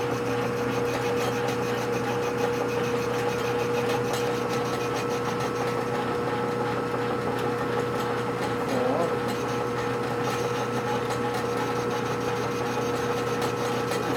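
Metal lathe running steadily: a constant motor and spindle hum with a steady whine.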